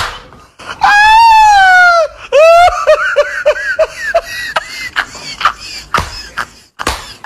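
A person's high-pitched shriek, held for about a second and dropping in pitch at the end, followed by a run of quick laughing bursts, about four a second, that fade out.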